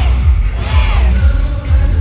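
Loud live pop music over a concert PA with heavy bass, and high voices arching up and down above it.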